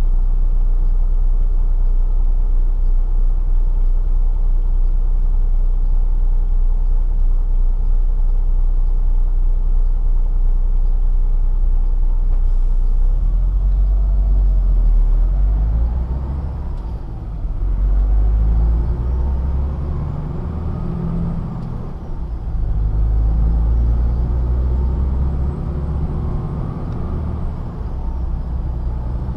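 MAN TGA truck's diesel engine heard from inside the cab, idling steadily with a low rumble, then from about 13 s in pulling away, its pitch rising and dropping several times as it accelerates up through the gears.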